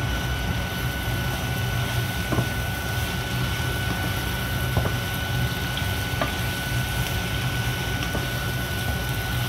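Sliced onions and peppers cooking in a frying pan, a steady sizzle over a constant low hum, with a few light knocks of a wooden spatula against the pan.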